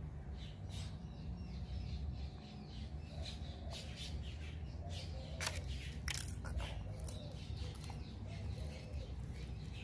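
Sulcata tortoise biting and chewing salad vegetables: a string of short, crisp crunches, loudest about halfway through. Faint bird chirps sound behind them.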